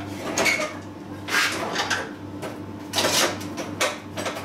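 A few short scrapes and knocks of metal parts being handled and shifted into place, about one a second, over a steady low hum.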